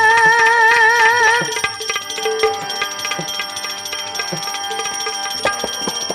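Live Indian devotional music: tabla playing under a long held note that wavers in pitch and stops about a second and a half in, after which the tabla carries on alone with its strokes.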